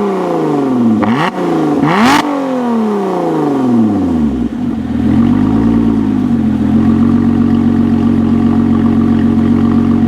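2017 Lotus Evora 400's supercharged V6 revved with two quick throttle blips about one and two seconds in. The revs then fall slowly and settle about halfway into a steady idle, held a little high in race mode.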